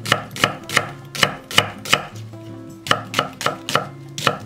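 Chef's knife slicing an onion into thick strips on a wooden cutting board: a steady run of sharp knife strikes on the board, about three a second, with a short pause about two seconds in.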